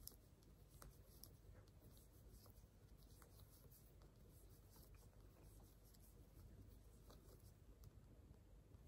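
Faint, irregular clicking and light scraping of knitting needles as stitches are worked through yarn, over quiet room tone.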